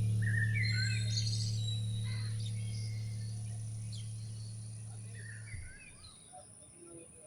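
Small birds chirping in short, scattered calls and quick sweeps. Under them a low held music note fades away and stops about five and a half seconds in.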